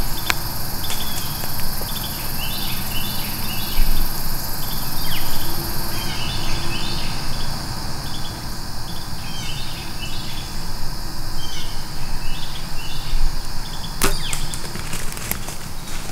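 Insects buzzing steadily and birds chirping in woods, then the sharp snap of a compound bow releasing an arrow about fourteen seconds in, followed by a few faint crackles.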